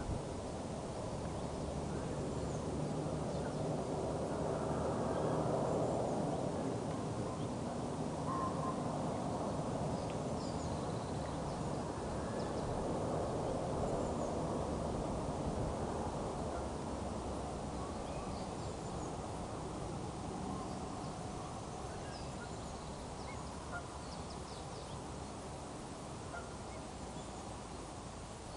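Outdoor ambience: a steady rushing noise that swells about four to seven seconds in and again around twelve to fifteen seconds, with faint bird calls scattered throughout.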